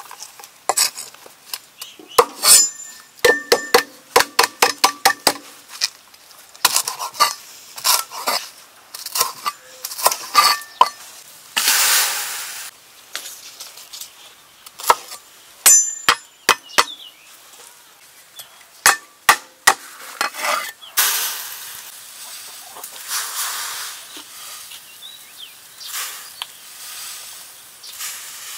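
A string of sharp clinks and knocks of dishes and cookware, some ringing briefly. A few short stretches of hiss come between them.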